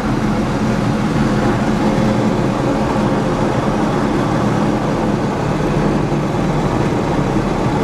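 Diamond DA20-C1's four-cylinder Continental IO-240 engine and propeller running steadily.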